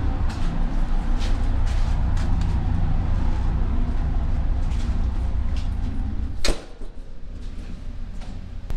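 Low, steady engine rumble with scattered knocks and rattles. About six and a half seconds in a sharp click cuts in, and the rumble drops to a much quieter level.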